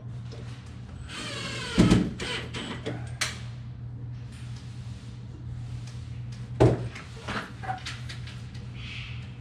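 A cordless drill runs in one short burst, driving a screw for a vertical-blind bracket at the window frame, with clicks and knocks of handling right after it. A single heavy thump comes later.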